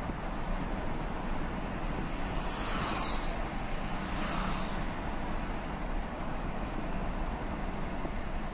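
Steady road and wind noise of a moving Maruti Suzuki Swift, heard from inside the car. Two brief rushing swells rise over it about three and four and a half seconds in.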